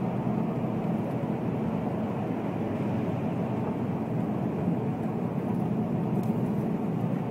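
Steady road and engine noise heard from inside a car cruising through a road tunnel.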